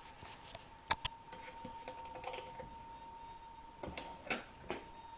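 A few light clicks and taps of things being handled on a kitchen counter, two close together about a second in and three more around four seconds in, over a faint steady whine.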